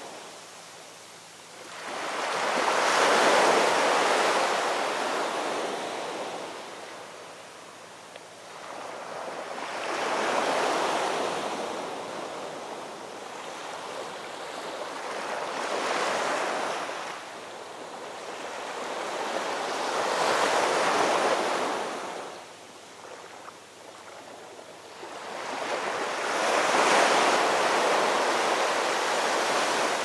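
Heavy ocean surf: waves breaking and washing in five surges of rushing water, each building and falling away over a few seconds, about every five to six seconds. The first and last surges are the loudest.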